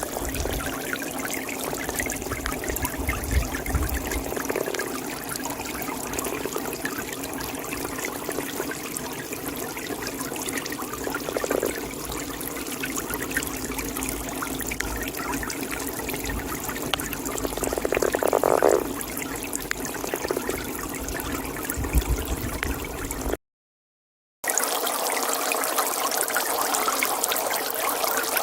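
A toad calling in a pond over trickling water, with a few louder calls now and then. About 23 seconds in the sound cuts out for a second, then resumes without its low rumble.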